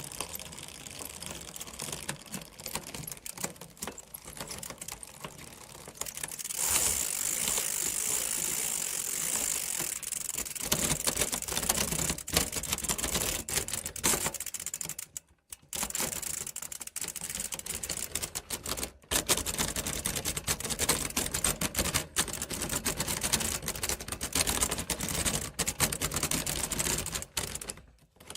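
Wheels, chain and crankset of a broken bicycle spinning, with rapid ratcheting clicks and chain rattle. It grows louder about six seconds in and stops briefly twice around the middle.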